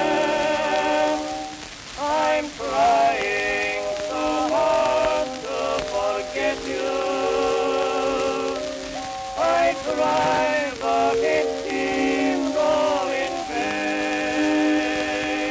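Music from a 1905 Victor acoustic-era disc recording of a male duet with orchestra, several parts holding notes with a wavering vibrato, thin and mid-range in tone, over a steady crackle and hiss of record surface noise.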